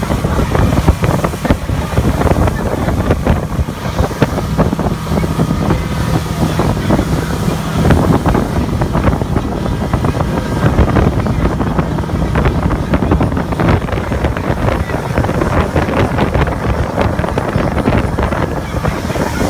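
Outboard motor running steadily at speed while towing an inflatable tube, with heavy wind buffeting the microphone.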